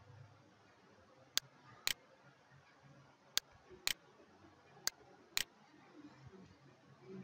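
Computer mouse button clicking: three pairs of sharp clicks, the two clicks in each pair about half a second apart.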